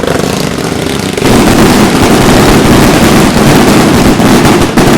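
Firework fountain spraying with a loud, steady rushing hiss full of fine crackle, growing louder about a second in.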